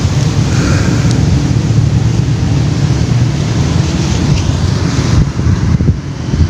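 Wind buffeting the microphone: a loud, uneven low rumble that eases off about five seconds in.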